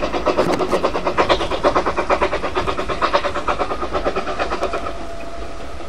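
Steam-hauled train on the move, most likely the 1938 Hudswell Clarke 0-6-0 saddle-tank locomotive 'Wissington', with rapid even beats at about six a second. The beats fade out about five seconds in, leaving a steady rumble.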